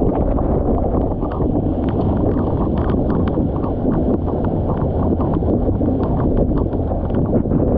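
Wind buffeting the microphone of a camera on a windsurfer under sail, a heavy steady rumble, with frequent short slaps of choppy water against the board.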